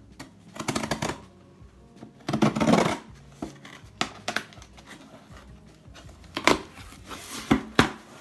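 A pocket knife cutting the packing tape on a cardboard shipping box, then the tape and flaps pulled open: irregular bursts of tearing and cardboard rustling, the loudest a few seconds in, with a few sharp knocks in the second half.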